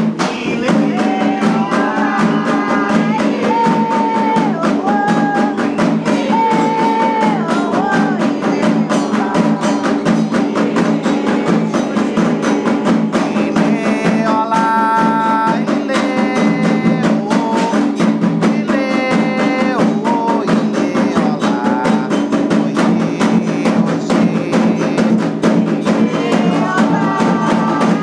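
Atabaque hand drums playing a fast, steady rhythm under a melody of held notes: a hymn performed with Candomblé atabaques.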